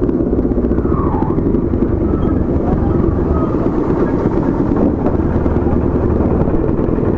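Motorcycle running steadily while being ridden, with wind rumble, picked up by a microphone inside the rider's helmet.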